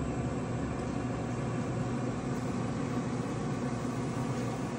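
Pit Boss Pro Series 850 pellet grill running, a steady mechanical hum as its newly replaced auger motor turns: the auger is working again after the old motor seized.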